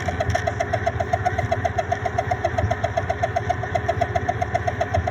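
3D printer running, its stepper motors giving short, evenly repeated whines about eight times a second over a low steady hum.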